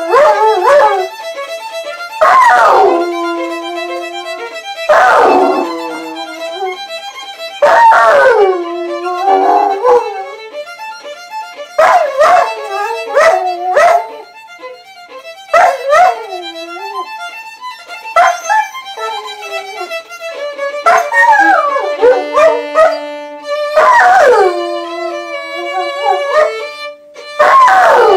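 A violin plays while a dog howls along with it. The howls come in repeated long calls every two to three seconds, each sliding down in pitch, and they are louder than the violin.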